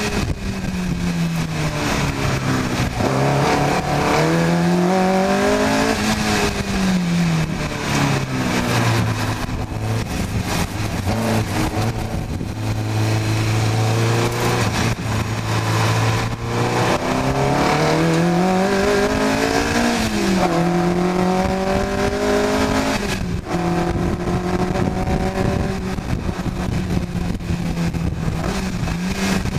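Onboard engine of a car-engined open-wheel track car at full pace. The revs climb and fall again and again through gear changes and braking, hold steady for several seconds midway, and drop sharply about three quarters through, with constant wind and road noise.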